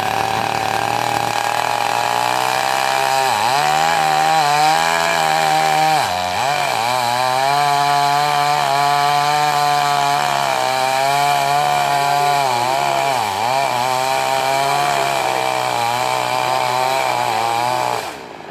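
Chainsaw running at high revs while cutting, its pitch dipping briefly several times as the chain bites into the wood. It drops off near the end.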